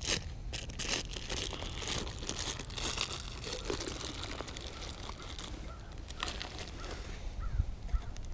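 Crinkling and clicking as hands handle a plastic fish-scent bottle and its snap cap, busiest in the first few seconds and thinning out after.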